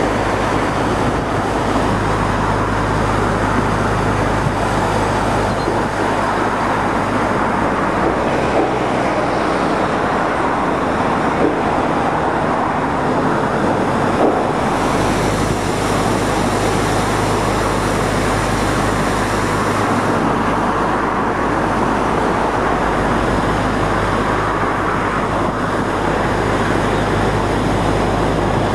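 Steady rushing of water pouring down a canal lock's stepped overflow weir, with a low steady engine hum from construction machinery under it.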